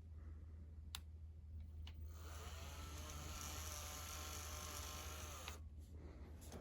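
Electric standing desk's lift motor running for about three and a half seconds, its pitch rising as it starts and falling as it stops, after a couple of light clicks.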